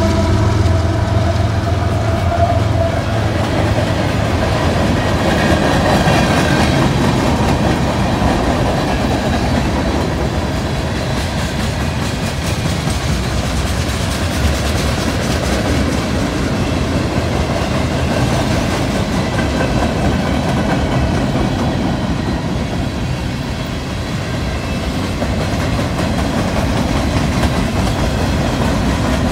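Freight train passing close by. GE diesel locomotives run with a steady engine drone that fades within the first few seconds, then a long string of tank cars and boxcars rolls past with continuous wheel rumble and clickety-clack over the rail joints.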